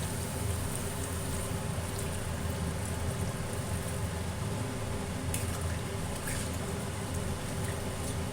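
Water being poured into a kadai of fried curry masala, a steady watery rush, with a couple of light knocks about five and six seconds in.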